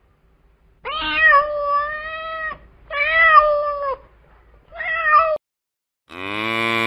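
A cat meowing three times: a long, drawn-out first meow, then a shorter one, then a brief one. Near the end a different, much lower, steady call begins.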